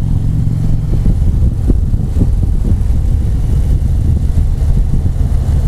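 Harley-Davidson touring motorcycle's V-twin engine running steadily at highway cruising speed, heard from the rider's seat.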